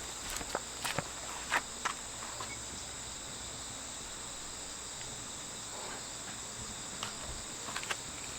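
Insects chirring steadily in a high, unbroken tone, with a few light knocks in the first two seconds.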